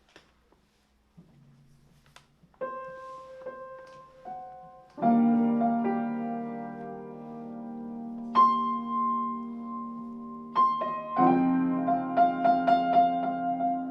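Piano improvisation: a few soft notes, then a slow melody of single held notes, a loud sustained chord about five seconds in, and fuller chords with quick repeated notes over the last few seconds.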